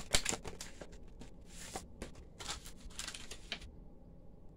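Clear plastic die-set packaging crinkling and clicking as it is handled, with a run of crisp clicks and rustles. The sharpest click comes near the start, and the sound dies away about a second before the end.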